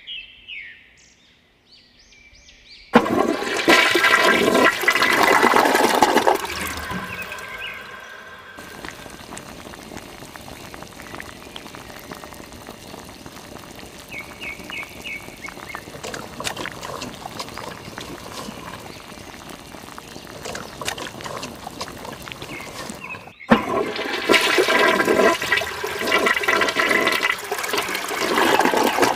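Water rushing and splashing, loud for a few seconds near the start, then a softer steady flow, then loud again from about six seconds before the end.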